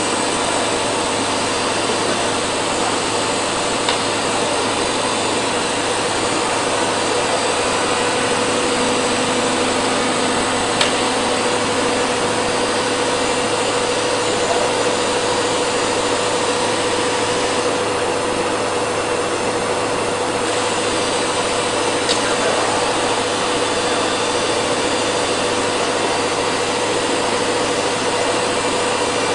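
PTP CNC router machining, a steady tone held over a constant rushing noise, with a few faint clicks.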